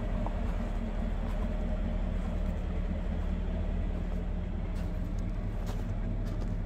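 2003 Chevrolet 2500 utility truck's engine idling, a steady low hum, with a few footsteps crunching on gravel in the second half.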